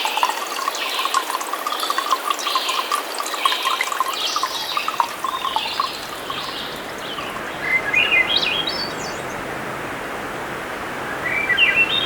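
Forest birds calling over trickling water for the first half. Then, over a steady background hiss, one songbird sings a short phrase of quickly rising notes twice, a few seconds apart.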